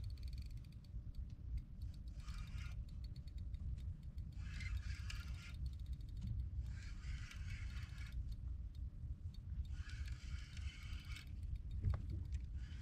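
Spinning fishing reel being cranked in repeated spells about every two seconds, each a short mechanical rasp, as a line is worked on a jigging rod. A steady low rumble runs underneath.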